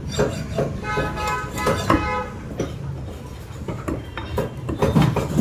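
Meat cleaver chopping raw chicken on a wooden chopping block, repeated sharp chops roughly two a second. A horn toots for about a second near the start, over a low steady rumble.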